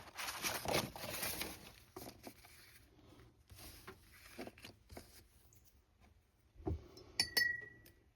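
Art supplies being picked up and handled, with small knocks, then two sharp glass clinks near the end that ring briefly.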